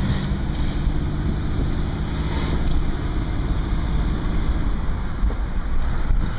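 Cabin noise of a Chevrolet vehicle driving on a street: a steady low engine and road rumble with some wind noise.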